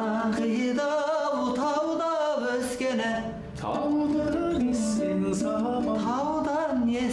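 A solo voice singing a Kazakh folk song in long, held notes that bend between pitches, in two phrases with a short break about three seconds in.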